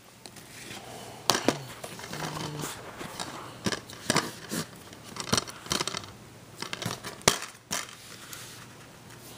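Plastic DVD case being handled and opened: a string of sharp clicks and taps with rustling between them, the loudest clicks about a second in and about seven seconds in.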